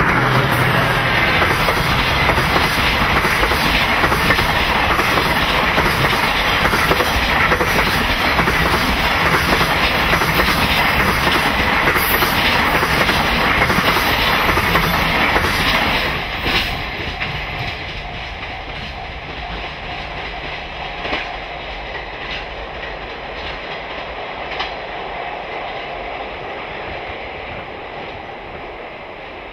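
Freight train wagons rolling past at speed, the wheels clattering over the rail joints. The clatter drops off suddenly about halfway through as the tail of the train passes, then fades away as the train recedes.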